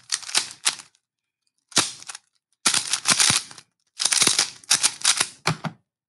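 Plastic Rubik's cube being turned fast in a speedsolve: rapid clacking of the layers as they snap round, in four bursts of turns with short pauses between them.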